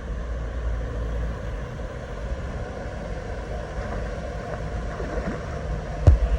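Steady low rumbling rush of water pouring over a waterfall, with one sharp click about six seconds in.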